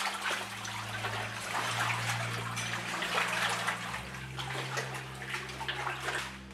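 Water splashing and sloshing irregularly as a caver crawls and wades through a flooded cave stream passage.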